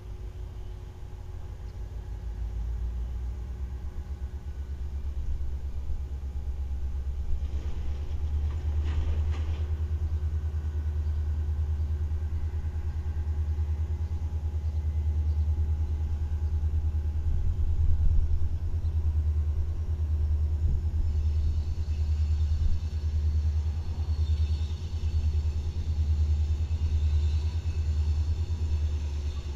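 CSX diesel locomotive hauling a welded-rail train on a curve, its engine a deep, steady rumble that grows louder as it approaches. A faint high squeal joins in about two-thirds of the way through.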